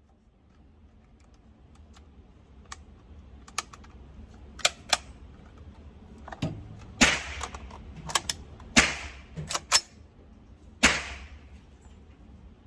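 Sharp metallic clicks and clacks of a 7.62x39 AR pistol being handled and worked, with three louder sharp reports in the second half. The pistol is running steel-case ammunition, which it cycles poorly.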